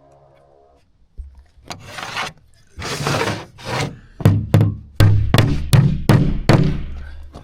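Hammer driving a ring-shank nail into a plywood floor: a couple of scraping rubs, then from about four seconds in a run of sharp blows, roughly three a second.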